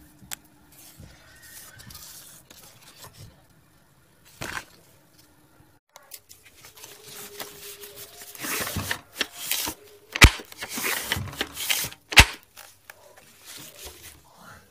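Cardboard rubbing and scraping as the parts of a cardboard toy shotgun are handled, louder in the second half, with two sharp clicks about two seconds apart.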